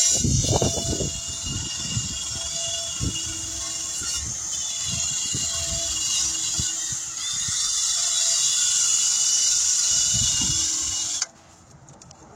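A handheld power tool runs steadily with a high whir, worked around the wheel rim with irregular scraping and knocking against the metal. It cuts off suddenly about a second before the end.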